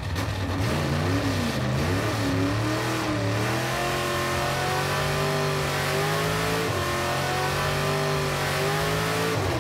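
Hot-rodded 1956 Chevy 210's engine revving: the note rises and falls in blips at first, then climbs steadily under load, drops once about two-thirds of the way in and climbs again.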